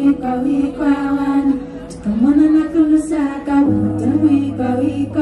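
A woman singing a slow melody with long held notes into a microphone, over a backing of steady held low notes; a deeper bass note comes in a little past halfway.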